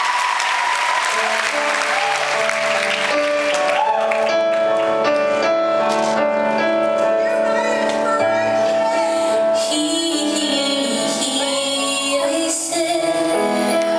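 Audience applause fading out as a live band starts a song: held keyboard chords over bass and drums, with a woman's singing voice.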